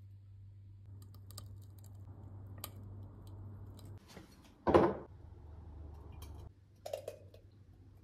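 Glass jar and kitchenware being handled: scattered light clicks, one loud knock a little past halfway, and a short ringing clink near the end, over a low steady hum.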